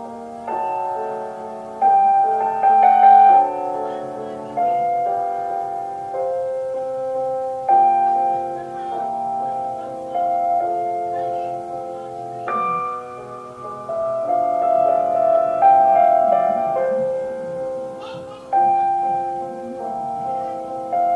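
Slow classical piano music: full chords struck every second or two, each ringing and fading before the next.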